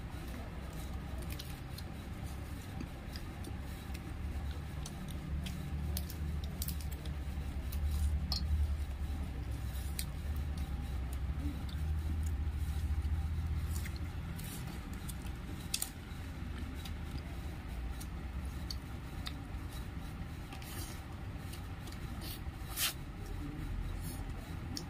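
Scattered small clicks and crackles of fingers picking meat and bits of bone from a cooked goat head on a plastic plate, with chewing. Under them a low rumble swells for about ten seconds in the middle.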